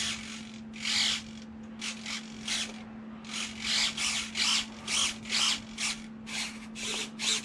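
Metal-gear servos of an E-Flite F-18 RC jet whirring as they drive the control surfaces back and forth, a quick series of short bursts about two to three a second. A steady low hum runs underneath.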